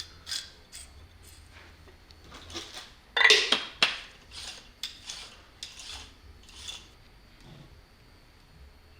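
Small metal parts being handled: a string of short clinks and scrapes, the loudest about three seconds in, then lighter rubbing and tapping.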